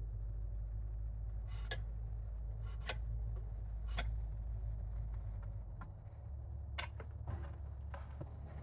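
Five or six sharp wooden and metal taps and knocks from hand tools and workpieces being handled on a workbench, spaced irregularly, over a steady low hum.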